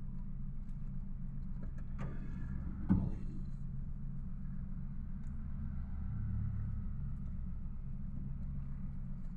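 Car engine idling, a steady low hum heard inside the cabin. A light knock comes about two seconds in, and a sharper, louder knock a second later.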